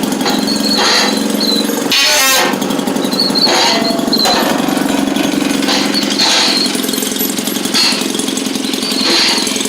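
Maytag Model 72 twin-cylinder two-stroke engine running with a fast popping beat that surges every second or so, with a brief louder burst about two seconds in. The owner thinks it is struggling to get fuel and needs a rebuild.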